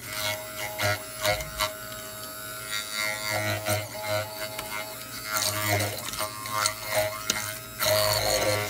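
Immersion (stick) blender running steadily with a constant motor whine, pureeing pears in a tall plastic beaker while melted butter is blended in to make a dressing.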